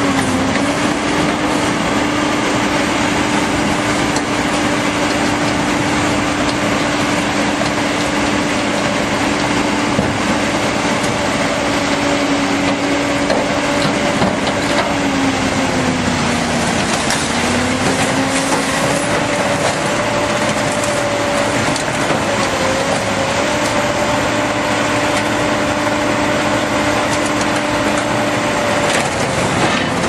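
A tracked excavator's diesel engine runs steadily under load while its hydraulic scrap shear cuts and crushes car scrap, with continuous metal crunching and creaking. The engine pitch sags once past the halfway point, then recovers.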